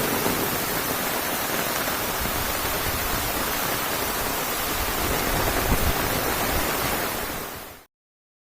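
Heavy rain falling in a steady, dense hiss that fades out quickly near the end.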